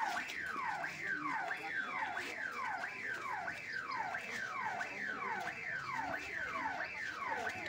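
Electronic warning siren sounding a repeating falling sweep, about two a second, each dropping sharply in pitch.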